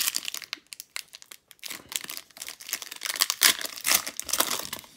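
Foil trading card pack wrapper crinkling as it is handled and ripped, a dense run of crackles that is loudest about three and a half to four and a half seconds in.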